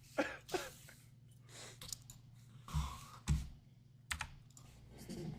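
A few scattered computer keyboard clicks and taps, with a couple of soft low thumps.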